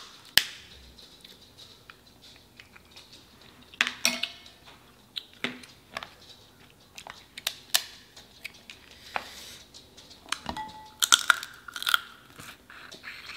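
Cooked king crab leg shells snapping and crackling as they are broken apart by hand, in scattered sharp cracks. Two loud snaps come at the start and a quick cluster near the end, with close-up chewing of the crab meat in between.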